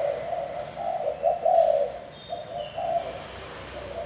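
A Thai-bred spotted dove cooing in low, pulsed notes: a run of coos for about two seconds, a pause, then a shorter coo near the end.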